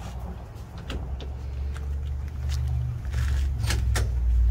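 Steady low rumble that grows louder toward the end, with scattered light clicks and taps.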